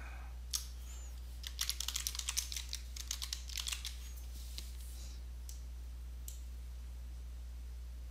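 Computer keyboard typing a short word: a quick run of a dozen or so keystrokes, then a few scattered single clicks, over a steady low electrical hum.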